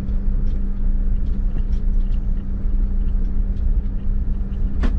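Motorhome engine and tyre rumble heard from inside the cab while rolling slowly over a paver street: a steady low drone with a constant hum. A short sharp click sounds just before the end.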